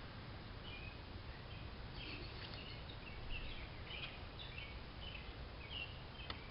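Small birds chirping in short, scattered calls over a faint low background rumble, with a single sharp click near the end.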